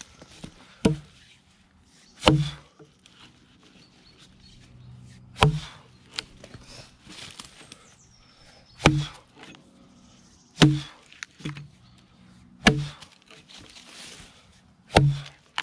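Axe chopping into the side of a somewhat green log: sharp, separate thunks of the steel head biting into the wood, about six heavy strikes two to three seconds apart, with a couple of lighter taps between them.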